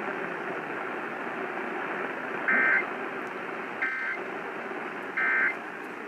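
Emergency Alert System end-of-message code: three short, identical bursts of screechy two-tone digital data, evenly spaced a little over a second apart, starting about two and a half seconds in. They mark the close of the relayed alert and play through a weather radio's speaker over steady AM radio static hiss.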